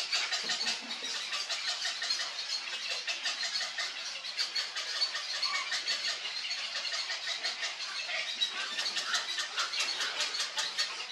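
Birds calling in an egret nesting colony: a fast, dense ticking chatter that runs on without a break.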